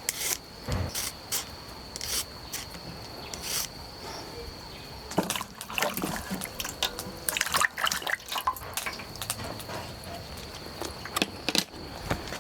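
Water splashing and trickling, with scattered knocks and clatter, over a steady high-pitched drone.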